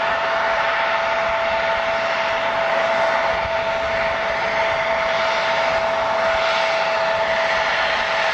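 Jet airliner engines running steadily: two steady tones over a loud rushing hiss.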